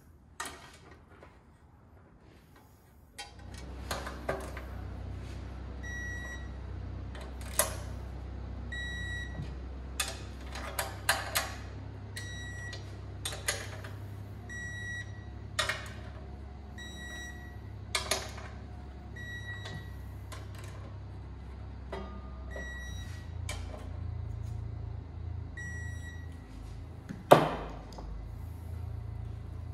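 Hand-tool work on an aluminium oil pan: scattered metallic clicks and knocks as a wrench is worked on the pan and tools are set down on the bench, the loudest near the end. A steady low hum starts about three seconds in, and a short high beep repeats about every second and a quarter through most of it.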